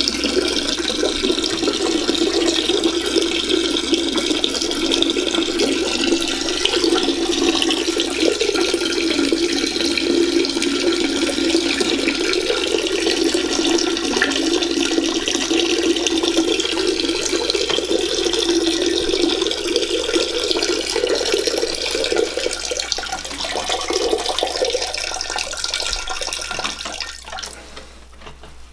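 A man's urine stream pouring steadily into the water of a toilet bowl, weakening and breaking up into dribbles near the end as he finishes.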